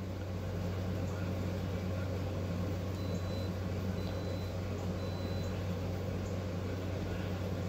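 A steady low electrical hum, with three short, faint high beeps about a second apart near the middle: an Instant Pot electric pressure cooker beeping three times to signal that its pressure-cooking program has begun.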